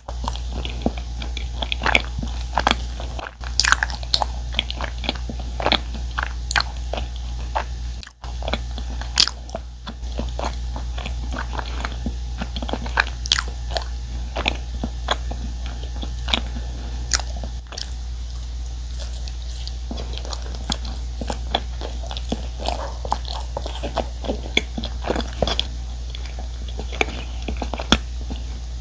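Close-miked chewing of a soft, chewy cream-cheese-filled chapssaltteok, a glutinous rice cake: wet mouth sounds with frequent sharp smacks and clicks. A steady low hum runs underneath.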